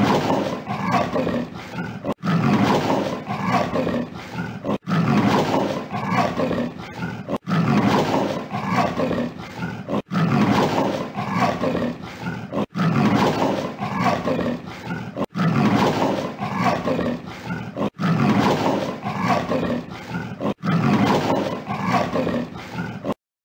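Leopard calling, the same short recording of about two and a half seconds played over and over, with a brief break between each repeat.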